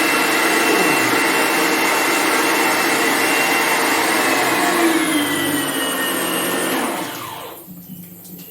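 Lakoni Laguna 550-watt electric high-pressure washer running with a steady motor whine. About five seconds in, the pitch drops and the motor winds down and stops near the end.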